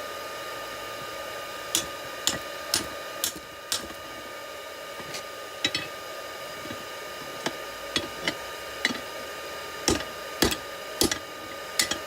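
Hammer blows on heated rebar against an anvil, about a dozen sharp strikes at an uneven pace starting about two seconds in, over the steady hum of the forge's air blower.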